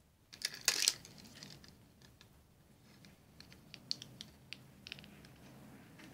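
Close handling noise: a short rustling burst of clicks about half a second in, then scattered light clicks and taps a few seconds later, as a phone camera and a pair of metal-framed sunglasses are handled.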